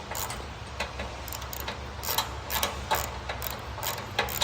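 Hand ratchet with a 17 mm socket clicking in short, irregular runs as it tightens bolts on the drum mower's belt guard, with a steady low hum underneath.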